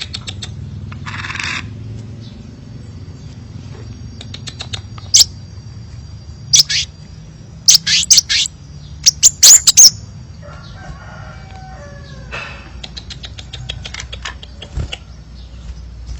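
Crimson sunbird calling: rapid dry ticking notes and sharp, high chips, loudest in a cluster of calls in the middle, over a thin high trill.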